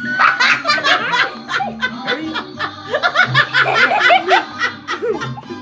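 People laughing and chuckling in quick repeated bursts, with music playing faintly underneath.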